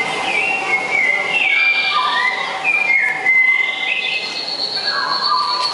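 High whistling tones that slide and step between pitches, like a whistled tune.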